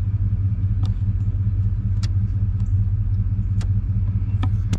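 Motorcycle engine idling steadily, with sharp clicks of the turn-signal flasher about once a second.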